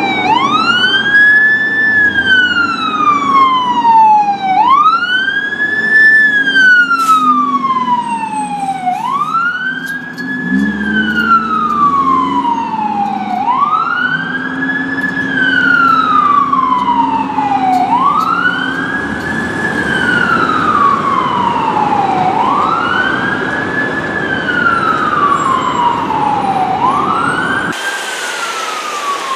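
Fire ladder truck's siren wailing. Each cycle rises quickly and then falls slowly, repeating about every four and a half seconds, over the low rumble of the truck's engine.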